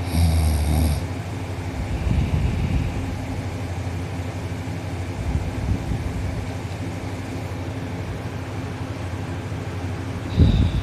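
A teenage boy snoring loudly in his sleep, mouth closed, with deep rumbling snores coming every few seconds.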